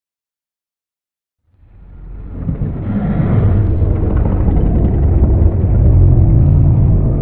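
Altered Godzilla monster sound effect: a deep, noisy rumble that swells up out of silence about a second and a half in and stays loud.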